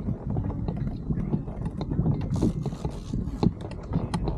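Fishing reel being cranked hard during a fight with a hooked fish from a kayak, a steady run of rapid mechanical clicking and rattling, with water rushing against the hull for about a second midway; the footage is sped up.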